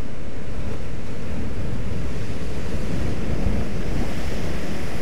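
Rough sea surf breaking and washing over a rocky shore, with strong wind rumbling on the microphone. A steady, loud wash of noise.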